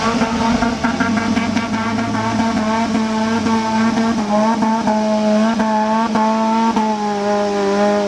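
Off-road 4x4's engine held at high revs at a nearly steady pitch, wavering slightly up and down, with scattered knocks.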